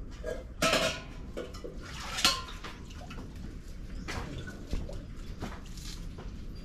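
Metal milking pot clanking and rattling as it is carried, its handle knocking against the pot. There is a burst of clatter just over half a second in and a sharp clank a little after two seconds, then lighter knocks.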